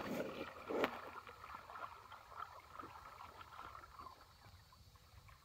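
Shallow pond water splashing and sloshing as hands grope inside bamboo polo fish traps set down in the water. A sharp splash comes about a second in, followed by faint small splashes and drips that die down.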